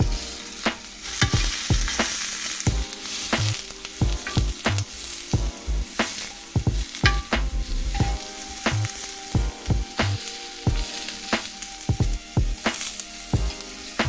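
Zucchini slices sizzling in an oiled ridged grill pan, a steady frying hiss broken by frequent sharp clicks and pops, about one or two a second.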